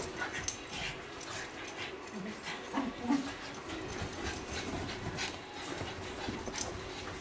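Two small dogs play-fighting, giving a few short low vocal sounds about two to three seconds in, with scuffling and sharp clicks as they wrestle.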